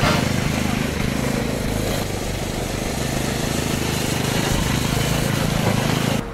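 Small Polaris youth snowmobile's engine running steadily as it rides along a snow track; the sound cuts off suddenly just before the end.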